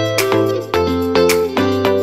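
Background music: a plucked-string melody, notes struck sharply and dying away, over a steady low bass.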